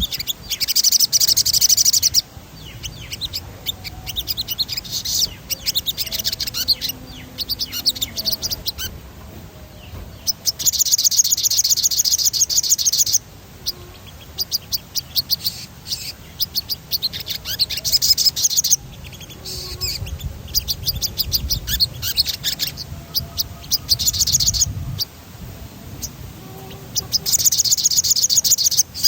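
A sogon songbird singing gacor: loud, high-pitched rolling trills of very rapid repeated notes, in phrases of one to three seconds with short pauses between them.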